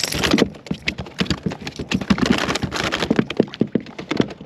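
A freshly caught bass flopping and thrashing: a quick, irregular run of sharp knocks and slaps.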